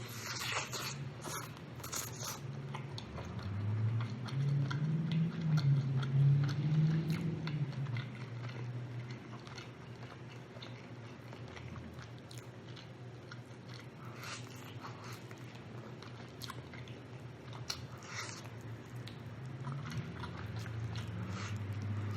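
Close-up eating sounds: chewing and biting into rotisserie chicken, with scattered short wet clicks and smacks from the mouth.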